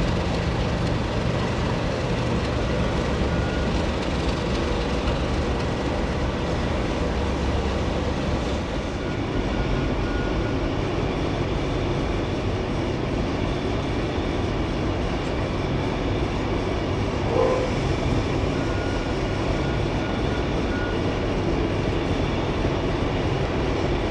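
English Electric Class 37 diesel locomotive with its engine running steadily. The deep low note is strong for about the first nine seconds, then becomes lighter as a locomotive creeps slowly along the platform.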